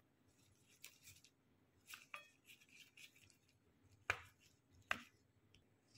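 Faint rustling and light clicks of gloved hands handling a roll wrapper on a work surface, with two sharper taps about four and five seconds in.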